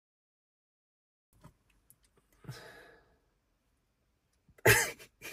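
Dead silence at first, then faint clicks and a soft breath-like sound inside a car; near the end comes a short loud burst, followed by a few small clicks.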